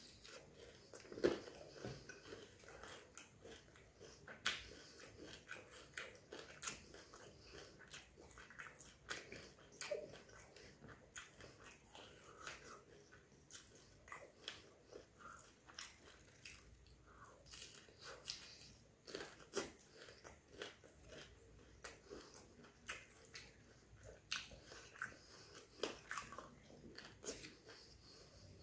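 Close-up eating sounds of a prawn vadai, a fried lentil fritter topped with whole prawns: irregular crisp crunches and bites with wet chewing between them.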